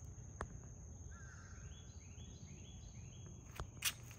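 Faint outdoor ambience with a bird calling: a short warbling note about a second in, then four repeated calls about half a second apart. A thin steady high tone runs underneath, and a sharp click near the end is the loudest sound.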